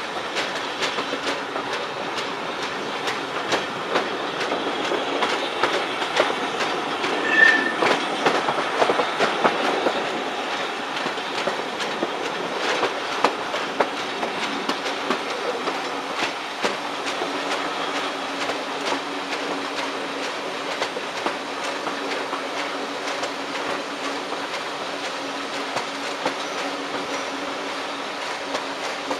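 Railway carriage running over the rails with continuous clickety-clack, and a repeated knock from a flat spot worn on one of the coach's wheels. A short high-pitched tone sounds about seven seconds in.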